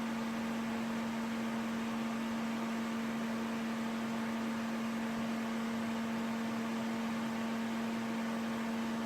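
Homemade solder fume extractor fan running steadily: a constant motor hum over an even rush of air drawn through its filters.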